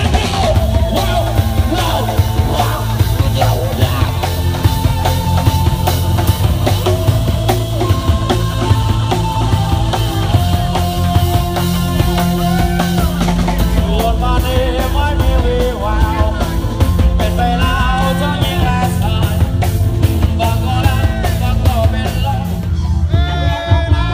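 Live rock band playing loud: drum kit, bass and electric guitars, with a singer.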